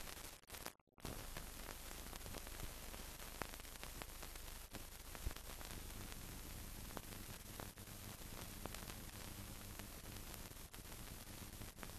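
Steady hiss with scattered clicks and crackles and a faint low hum: the surface noise of an old film soundtrack carrying no programme sound. It drops out briefly about a second in.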